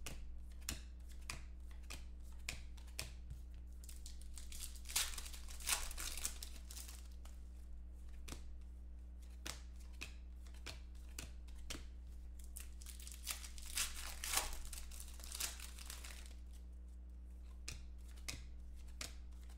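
Trading cards being thumbed through one after another, with sharp clicks of card edges, and foil pack wrappers crinkling and tearing twice, about five seconds in and again past the middle. A steady low hum runs underneath.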